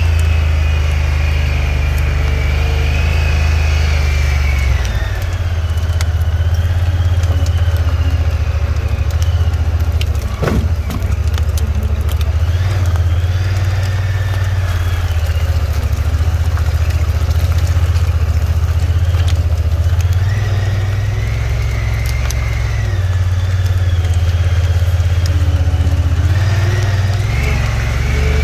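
Off-road vehicle engine running at low speed along a snowy, rutted dirt track: a steady low drone with a higher whine that rises and falls with the throttle. The engine note dips briefly about ten seconds in.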